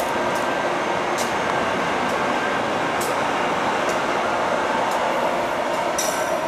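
Amtrak AEM-7 electric locomotive rolling slowly past with its train: a steady running hum with a few light clicks from the wheels, and a brief high squeal near the end.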